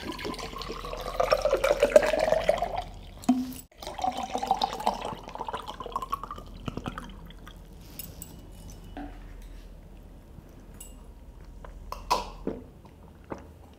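Orange drink poured from a plastic bottle into a glass in two pours, the pitch of the pour rising as the glass fills. A few swallows follow near the end.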